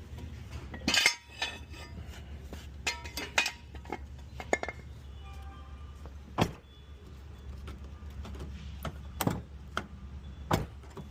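Scattered metal clinks and clicks of bolts and hand tools being handled, with a brief clatter about a second in and single sharp knocks every few seconds, over a steady low hum.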